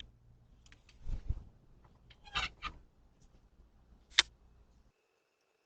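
Scattered sharp clicks and a dull thump over a faint hum, picked up by a doorbell camera's microphone; the sound cuts out abruptly about five seconds in.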